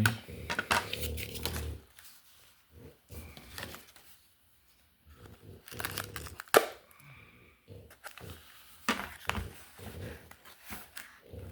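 A trading card pack's wrapper being torn open and crinkled: irregular rustling and crackling, with one sharper snap about six and a half seconds in.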